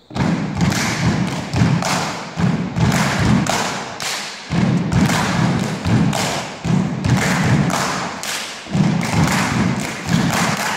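Men's a cappella singing group performing: a heavy, rhythmic thumping beat of about two strokes a second with deep men's voices, starting abruptly.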